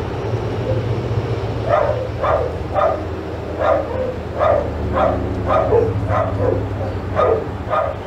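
A dog barking over and over, short barks about two a second in runs that begin about two seconds in, over a steady low hum.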